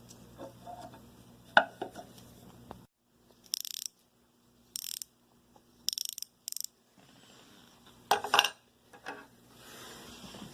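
Snap-on combination ratcheting wrench heads being ratcheted, giving short bursts of fast, fine clicking from the pawl and gear, four times in the middle. A louder clatter of handling comes about eight seconds in, and fainter ratcheting follows near the end.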